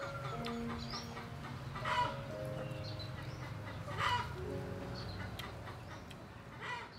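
Chickens clucking and calling, a loud call about every two seconds, over background music with held notes.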